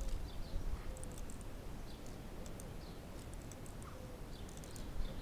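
Plastic clicking from a K'nex car's swinging-weight ratchet drive as it runs slowly on a draining supercapacitor, over a low rumble. Small birds chirp now and then in the background.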